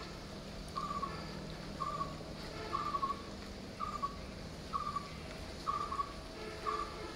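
A bird calling with a short, slightly falling note repeated about once a second.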